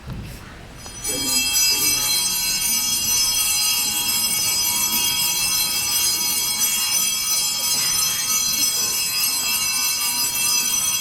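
Church organ starting about a second in and holding a steady, high chord of many tones.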